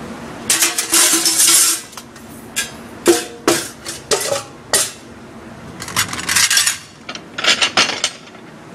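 Dishes and cutlery clattering and clinking as they are handled. A rattling run comes in the first two seconds, then several sharp single clinks, some ringing briefly, then two more clattering runs near the end.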